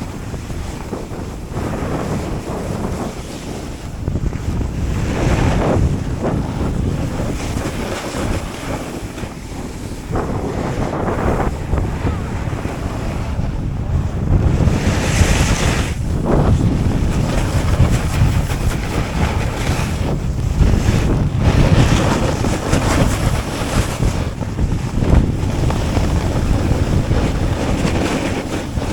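Snowboard riding downhill: wind rushing over the microphone, and the board scraping and hissing over the snow, the rush swelling in surges every few seconds as the rider turns.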